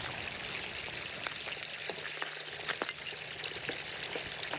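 Water streaming from the drain hole of an aluminium rowboat and splashing onto shoreline stones, a steady splashing hiss with scattered small crackles as the boat is drained.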